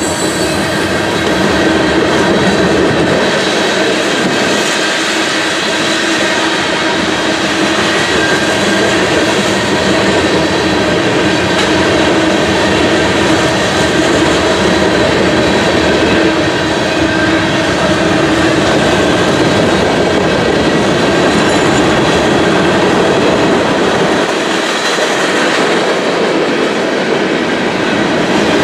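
A mixed freight train's cars rolling steadily past: the continuous rumble and rattle of steel wheels on the rails, with steady ringing tones running through it.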